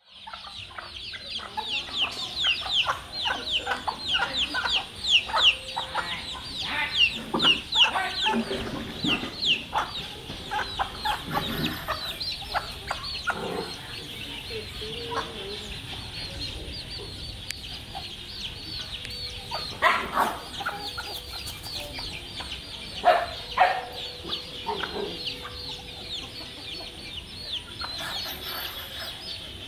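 A flock of chickens clucking. A fast run of high, falling peeps fills roughly the first ten seconds, and a few louder clucks stand out later on.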